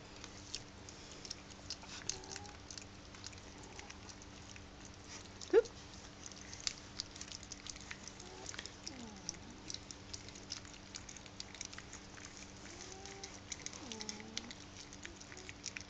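Weaning-age Staffordshire bull terrier puppies eating wet food from a plate: a steady patter of small wet smacking and lapping clicks. A few faint squeaks come from the puppies, with one louder short squeak about five and a half seconds in.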